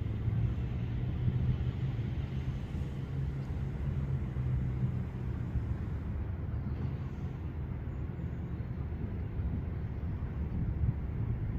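A steady low rumble of distant engines, with a hum that is strongest over the first half and fades somewhat after.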